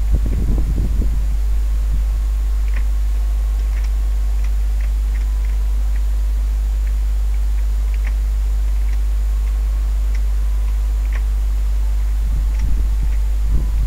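Steady low electrical hum, with faint scattered ticks and brief low rumbles in the first second and again near the end.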